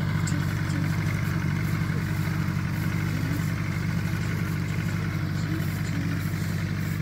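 Allis-Chalmers G tractor's small four-cylinder engine running steadily as the tractor drives off, growing slightly fainter.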